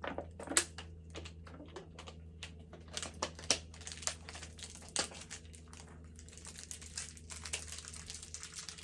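Plastic candy packet crinkling and tearing as it is opened and handled, with irregular sharp rustles and clicks, the loudest about half a second in.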